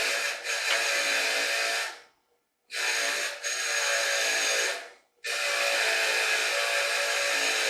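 Power wire wheel running and brushing a cast brass ingot to clean and dress it: a steady motor whine under a scratchy hiss. The sound drops out briefly about two seconds in and again about five seconds in, then resumes.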